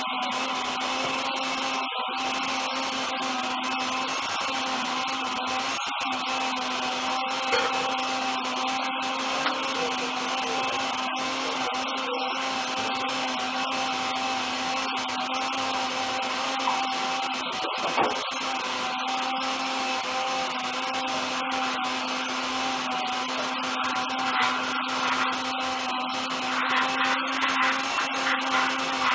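Countertop electric blender motor running steadily, blending boiled passion fruit, peel and seeds, in water. A few light knocks sound now and then.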